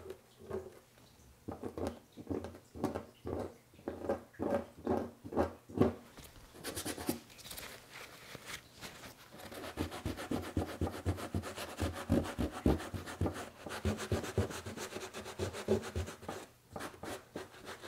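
A plastic scraper dragged over cold wax and oil paint on a painting panel in separate strokes, about two a second, scraping back a too-bright patch of colour. About halfway through this gives way to quicker, nearly continuous rubbing on the paint surface.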